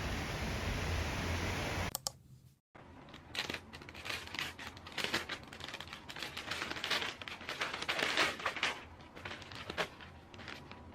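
A steady hiss that cuts off abruptly about two seconds in. Then plastic packaging being handled, crinkling and rustling in irregular bursts.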